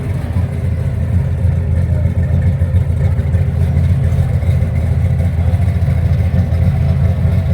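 1972 Chevrolet El Camino SS V8 engine running steadily with a deep, loud exhaust note, a little louder from about a second in.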